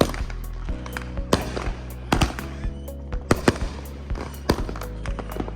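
Consumer fireworks going off in a rapid, irregular series of sharp pops and bangs, about a dozen, with music playing steadily underneath.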